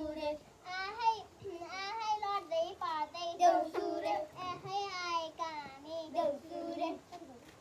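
A child singing a Deusi song, the Nepali Tihar carol, in a high, wavering melody of continuous phrases that breaks off near the end.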